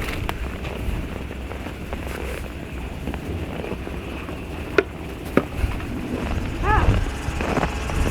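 Wind buffeting the microphone with a steady low rumble, broken by two sharp clicks about five seconds in and a brief high-pitched vocal sound near the end.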